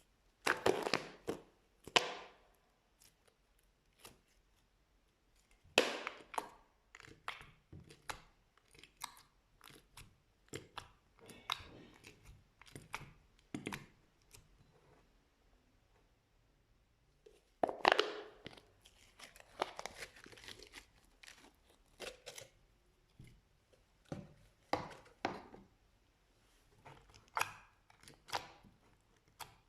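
Slime being squeezed and pressed by hand, giving irregular sharp clicks and short crackling clusters with quiet gaps between. The loudest clusters come about a second in, near six seconds and near eighteen seconds.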